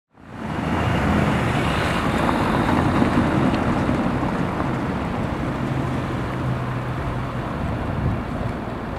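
A car engine running at low speed amid street traffic noise, fading in from silence at the start.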